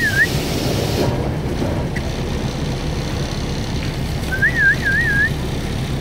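A dog whining in a high, wavering tone that wobbles up and down three times in under a second: one call trails off at the start and another comes about four and a half seconds in, over a steady low rumble.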